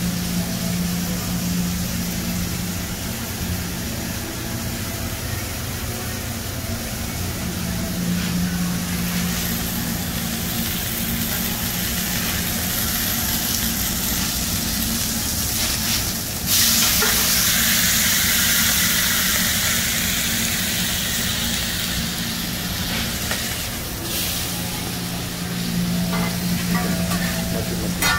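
Hot oil and beef patties sizzling in a commercial kitchen's deep fryer and on its flat-top griddle, a steady hiss over a steady low hum. About halfway through a louder burst of sizzling starts suddenly and eases off over a few seconds.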